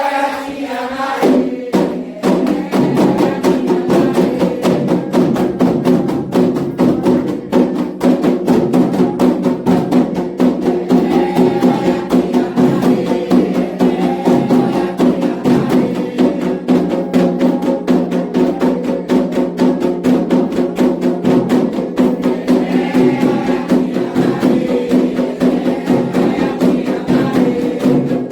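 Candomblé ritual percussion: atabaque hand drums and a struck agogô bell playing a fast, steady rhythm that comes in about two seconds in, after a short sung phrase.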